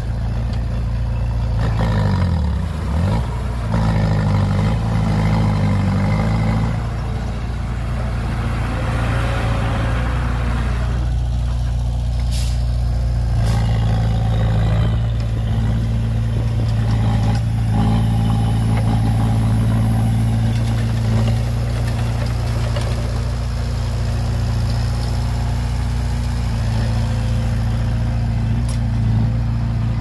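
Heavy diesel engines of a dump truck and a bulldozer running, with the revs dropping and rising again a few seconds in. Two short sharp knocks about halfway through.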